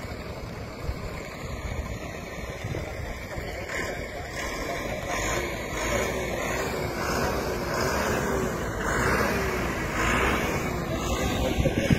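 A truck driving past, its engine and tyres growing louder from about four seconds in and staying loud near the end.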